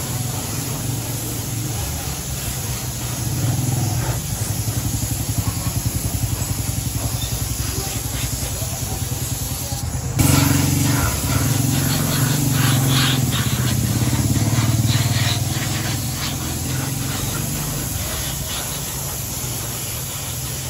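Gravity-feed paint spray gun hissing steadily as it sprays paint onto motorcycle engine parts, with a steady low hum underneath.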